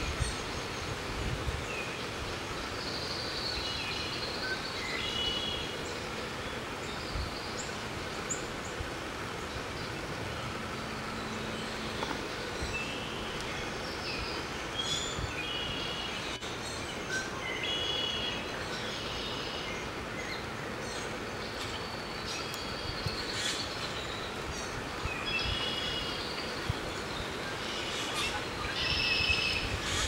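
Outdoor ambience: a steady rushing background noise with short high chirping calls scattered throughout.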